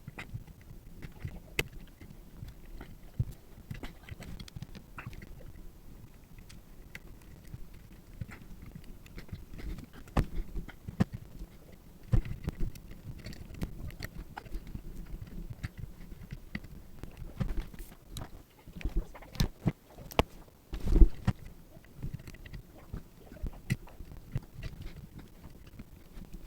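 Irregular small clicks, taps and knocks from hand work on a circuit board and tools at a bench, with a louder knock about two-thirds of the way through.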